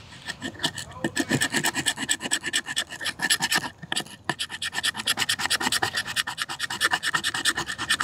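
Fatwood being scraped fast with the spine of a folded Schrade Radok pocket knife, rapid rasping strokes several a second, with a brief pause about four seconds in. It is scraping fine resinous shavings off the wood for fire-starting tinder.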